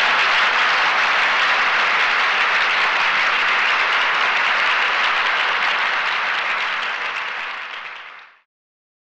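A large audience applauding, a steady dense clapping that thins out about seven seconds in and stops a little later.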